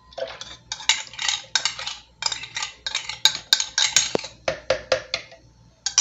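A utensil scraping and clinking against a cup in quick, repeated strokes, emptying dissolved unflavoured gelatin into a blender jar. There are a few sharper clinks about halfway through.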